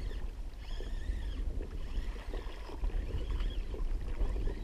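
Wind buffeting the microphone with a steady low rumble, and water slapping against the hull of a plastic sit-on-top fishing kayak.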